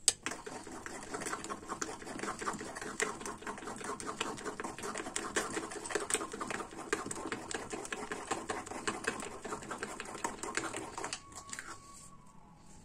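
Chocolate cake batter being beaten by hand in a bowl: a utensil tapping rapidly and evenly against the bowl with wet squelching of the batter. The beating stops about eleven seconds in.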